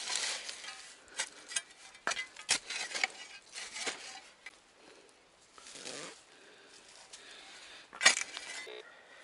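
A metal hand digger clinking and scraping in the ground as a metal detector target is dug out: a quick run of sharp clinks in the first few seconds, quieter scraping after, and one loud strike near the end.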